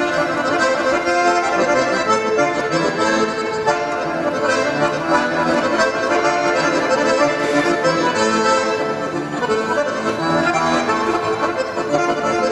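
Solo button accordion playing a folk-style piece: full chords and a running melody, continuous and steady in level.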